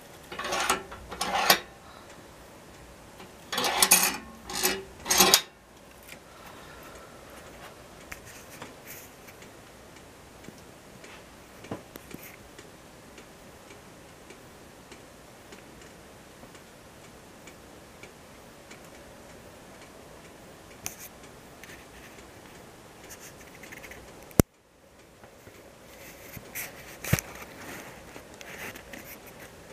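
Invicta Siam cast-iron wood-burning fireplace: the fire's faint steady hiss with scattered small crackles. Near the start come two short groups of scraping strokes, the loudest sounds here, and a single sharp click about 24 seconds in.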